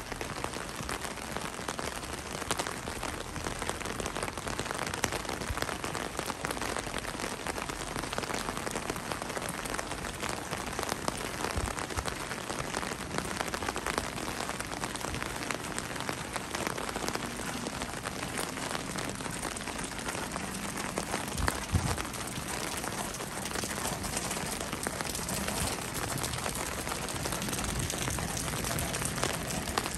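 Steady heavy rain falling on the street and pavement, an even hiss of drops, with a couple of brief low thumps about halfway through and again later.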